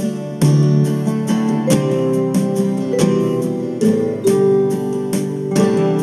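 Acoustic guitar strumming chords in the instrumental intro of a slow song, with no singing yet.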